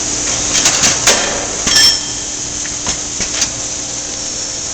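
Metal clanks and clinks from a centerless grinder's automatic gantry loader handling a camshaft: several sharp, briefly ringing knocks in the first two seconds and a couple of lighter clicks later, over the steady hum of the running machine.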